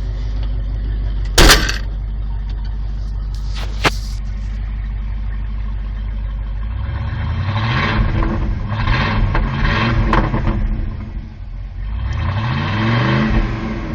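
1989 Ford F-150 engine through a straight-piped exhaust with the resonator removed, idling with a steady low drone, with two sharp knocks in the first four seconds. About seven seconds in it is revved several times, the pitch rising and falling, then revved once more near the end; still a little too loud.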